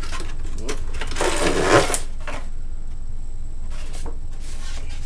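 Handling noise: a burst of rustling and clattering about a second in, under a second long, with a sharp knock near its end and a few scattered clicks, over a steady low hum.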